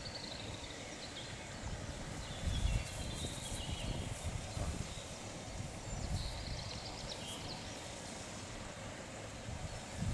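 Wild birds chirping and singing here and there over a low, uneven rumble.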